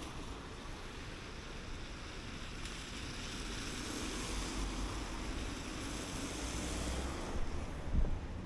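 Riding noise from a mountain bike on wet, slushy road: a steady tyre and road hiss with wind buffeting the microphone, swelling in the middle, and a low thump or two near the end.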